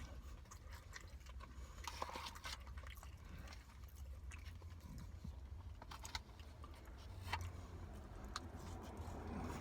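Faint chewing and mouth sounds of a person eating chicken biryani, with scattered small clicks, over a low steady hum.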